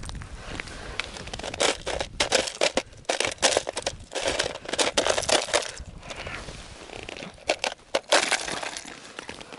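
Ice crunching and cracking as a hand breaks up and clears the crust of ice that has frozen over an ice-fishing hole. The crunches come in irregular clusters, with pauses in between.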